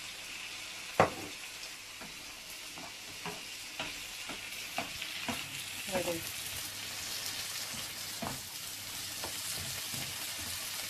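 Pancit canton noodles sizzling in a hot pan as they are stir-fried with soy sauce: a steady sizzling hiss under the scrape and clack of the utensil tossing them. One sharp knock against the pan about a second in, then lighter knocks now and then.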